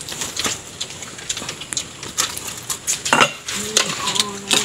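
Clatter of dishware as food is served: spoons scraping and knocking in steel bowls of rice, plates clinking and a steel pot lid being handled, in many short knocks and clicks. Near the end a steady low tone is held for about a second.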